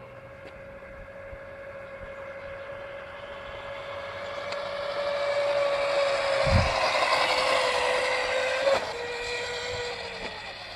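Small electric scooter's motor whining at a steady pitch as it rides past. It grows louder as it approaches, then drops slightly in pitch and fades near the end. A single low thump comes a little past halfway.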